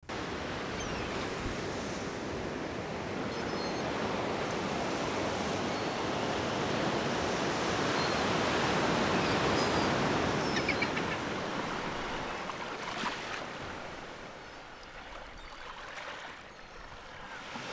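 Surf washing in a steady rushing hiss that swells toward the middle and fades over the last few seconds.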